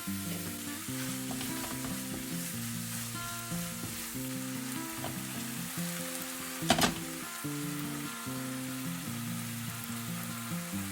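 Food sizzling as it is stir-fried in a frying pan, with one sharp knock about two-thirds of the way through. Background music with a simple melody plays underneath.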